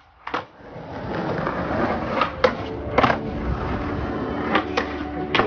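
Skateboard wheels rolling on concrete with a steady rumble, broken by several sharp clacks of the board as it pops and lands.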